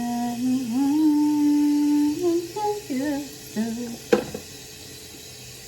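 A woman humming a slow tune to herself, holding long notes, with a sharp click or knock about four seconds in.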